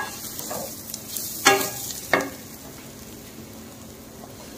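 Wooden spatula stirring and scraping spiced cabbage and onion frying in oil in a kadai, with a light sizzle: the masala being roasted. A few clacks of the spatula against the pan, the loudest about a second and a half in.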